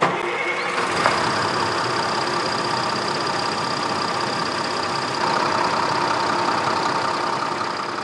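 A heavy machine engine running steadily with a high whine. It starts suddenly and fades out near the end.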